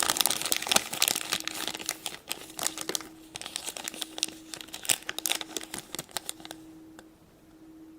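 Plastic toy packaging being crinkled and torn open by hand: a dense run of crackling rustles that thins out and goes quiet near the end.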